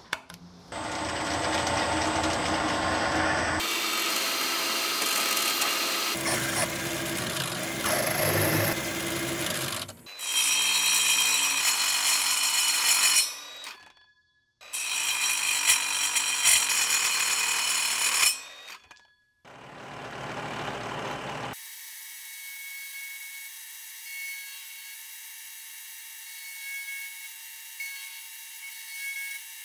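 A sharp tap at the start, then a series of short clips of a drill cutting into steel plate. In the last third a vertical milling machine runs steadily as an end mill cuts the steel part on a rotary table, with a thin, constant high ringing.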